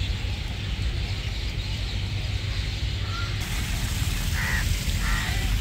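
Water hissing as it sprays from a leaking joint in a hose pipe, the hiss growing brighter about halfway through, over a low rumble. Near the end a crow caws twice, under a second apart.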